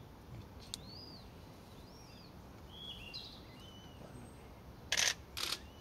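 Birds chirping with short high chirps that arch up and down, then two loud, harsh noisy bursts about half a second apart near the end.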